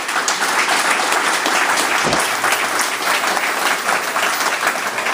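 Audience applauding, many hands clapping densely and loudly.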